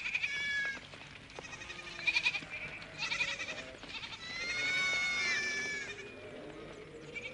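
A flock of sheep and goats bleating, with several calls overlapping and one long drawn-out bleat a little past the middle.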